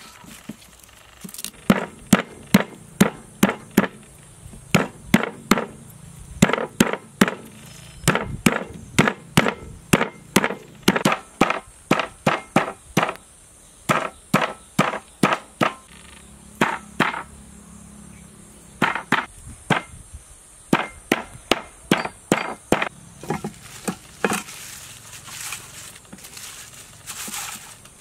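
Knife striking lemongrass stalks on a wooden chopping board: sharp, rhythmic chops about three a second, in runs with short pauses, stopping a few seconds before the end.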